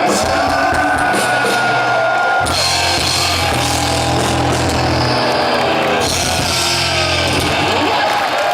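Heavy metal band playing live: distorted electric guitar with bent, sustained notes over drums and crashing cymbals, with a heavy held low note through the middle.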